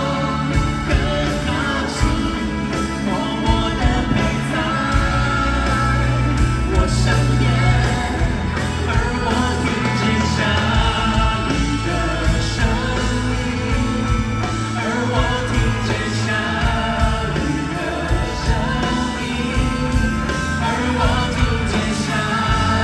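Pop song playing: band accompaniment with a steady drum beat and singing.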